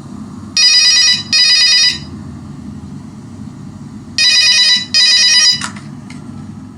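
Old-style telephone bell ringtone played through an 80 W Philips speaker: two double rings, one just after the start and one about four seconds in, over a steady low hum. A sharp click follows the second double ring.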